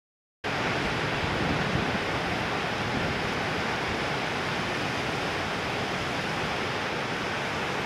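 Breaking ocean surf, a steady, even wash of noise that cuts in suddenly about half a second in.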